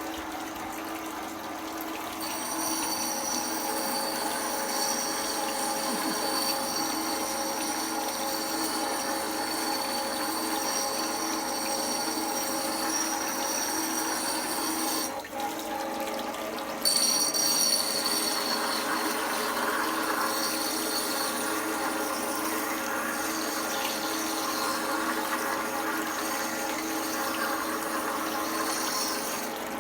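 Electric wet stone grinding wheel running, its motor humming steadily with water churning in the trough. A high whine over the hum drops out for about two seconds midway, then returns.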